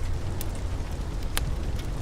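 Steady rain with a low rumble of rolling thunder under it, and a couple of sharp pops.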